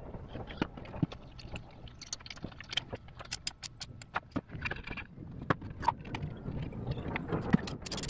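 Metal hand tools and compression-tester fittings clicking and clinking irregularly against the engine as they are worked at a spark plug hole.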